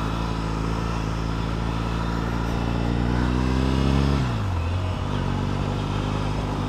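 Triumph Bonneville T100's parallel-twin engine, fitted with aftermarket exhausts, pulling away with the revs climbing steadily. The revs drop sharply about four seconds in at an upshift, and the engine then runs on steadily at lower revs.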